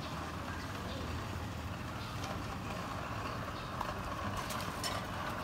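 Busy city street ambience: a steady hum of distant traffic with faint voices and a few light clicks and knocks near the end.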